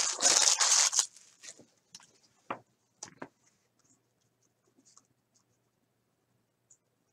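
Plastic card wrapper and sleeves crinkling for about a second, then a few light knocks on the desk, then faint scratching of a pen writing.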